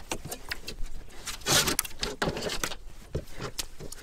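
Hands picking up and clearing parts of a diesel heater kit off a plywood board: a run of light knocks and clatter, with a few short rustles.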